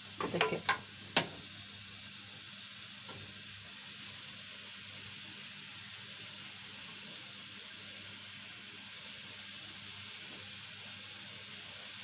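Hands squishing and mixing minced meat in a frying pan: a few short wet clicks in the first second or so, then only a steady faint hiss.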